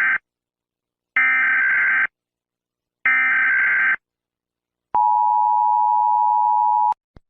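Emergency Alert System header: the tail of one burst and then two more short bursts of warbling two-pitch data tones, about a second apart, followed by the EAS two-note attention tone held steady for about two seconds. A brief click comes near the end.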